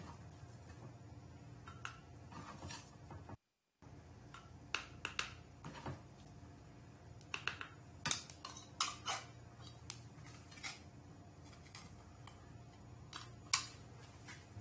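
Metal potato ricer clinking and clicking as boiled potatoes are pressed through it into a bowl, with scattered light metallic taps and scrapes at irregular moments.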